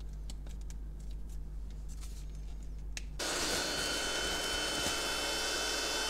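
A few light plastic clicks from handling the vacuum and its attachments, then the Oxtra Cordless Vacuum Pro's motor switches on about three seconds in. It runs on the blower side through a nozzle attachment with a steady whine and rush of air.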